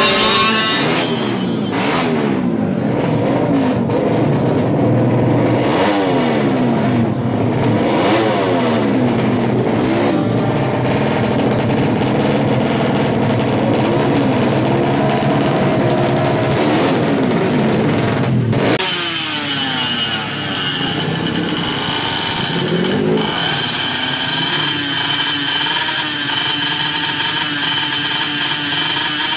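Race-tuned Yamaha F1ZR two-stroke engine, bored to 116cc, revved hard again and again, its pitch sweeping up and down. About two-thirds in the sound changes abruptly to a steadier running note with one short rev.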